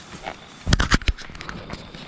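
A brief cluster of sharp clicks and rustles a little under a second in, close to the microphone, then quiet.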